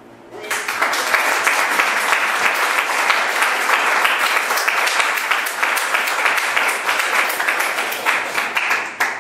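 Audience applauding: many hands clapping together. It starts abruptly about half a second in, holds steady, and stops just before the end.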